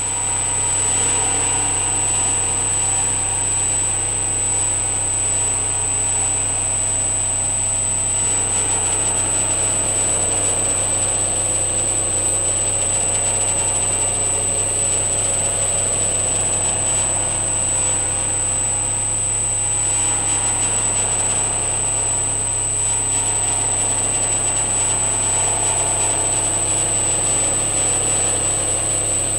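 Modular synthesizer playing a continuous electronic drone: layered held tones over a low hum, with a thin high whine held steady on top. The tones shift slowly as the touch-plate controller is pressed, the low hum changing about two-thirds of the way through.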